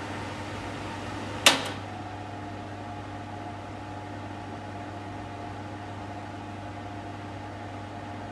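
Kitchen extractor fan running with a steady hum over an airy hiss. A sharp click about one and a half seconds in, after which the fan runs a little quieter with less hiss.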